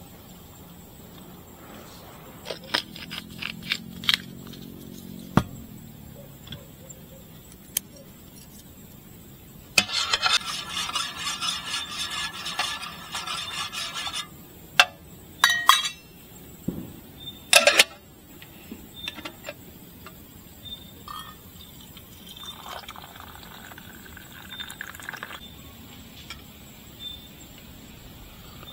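Scattered clinks and knocks of camp gear being handled. About ten seconds in there is a denser rush of noise lasting about four seconds, followed by a few sharp clicks.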